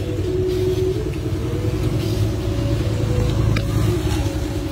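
A motor running with a steady low rumble and a wavering hum above it.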